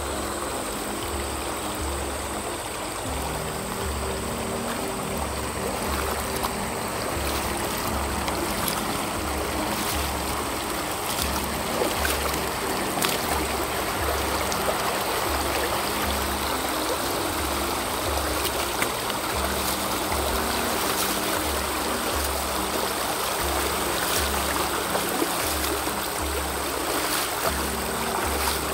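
Shallow creek running over stones in riffles, a steady rush of water, with background music carrying a slow, even low beat about once a second.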